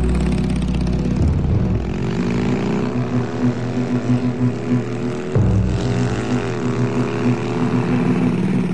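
A vehicle engine accelerating hard. Its pitch climbs and drops back at gear changes, about a second in and again a little past halfway.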